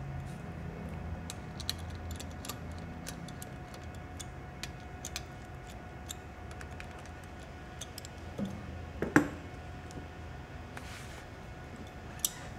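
Ratchet with an extension clicking in light, irregular ticks as the rocker shaft bolts are run down, with a sharper knock about nine seconds in.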